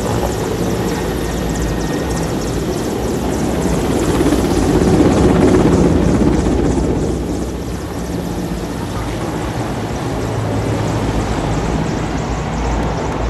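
Mil Mi-17 helicopter's rotors and turbines beating as it makes a low pass overhead, growing loudest about five seconds in, then easing as it moves away.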